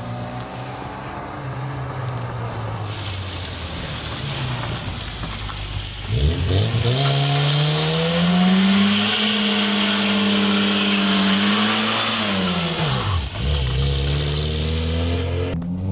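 Classic Lada sedan's four-cylinder engine revving hard as the car slides sideways on wet concrete. About six seconds in the revs climb steeply and hold high for several seconds with a hiss of tyre noise, then fall back sharply near the end.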